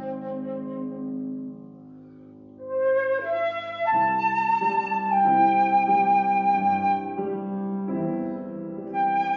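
Cocuswood flute and Bösendorfer grand piano playing a slow classical duet. A held chord fades to a brief lull; about three seconds in the flute comes back with a few quick notes and settles into long held notes over fresh piano chords.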